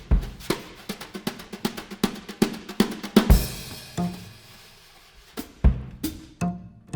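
Drum kit playing a busy pattern of snare and bass drum hits, with a cymbal crash about three seconds in. After the crash the hits thin out and low sustained string notes come in under them.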